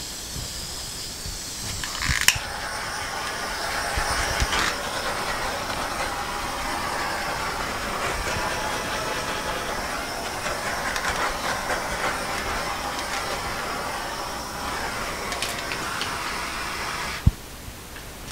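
Handheld torch burning with a steady hiss. It flares up with a click about two seconds in and cuts off suddenly with a sharp click near the end.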